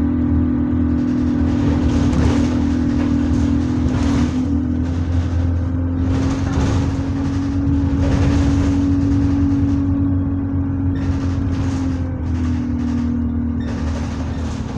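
Bus engine and drivetrain heard from inside the saloon while under way: a loud, steady hum that shifts slightly in pitch over a low drone, with short rattling bumps now and then.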